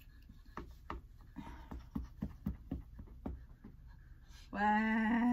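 Plastic knife cutting into a tiramisu cake, a series of light clicks and scrapes over about three seconds. Near the end, a long drawn-out spoken 'wow'.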